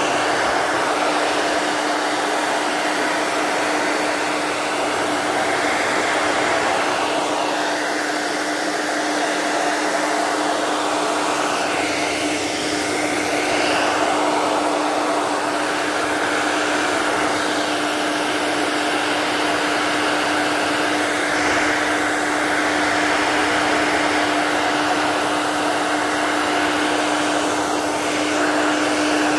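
Hair dryer running continuously, its motor hum steady under the rush of air, drying a wet layer of marble dust mixed with gesso so that it cracks into a crackle texture.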